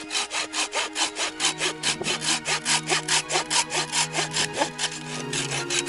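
Hand saw cutting through wood in quick, even strokes, about five a second, which stop just before the end.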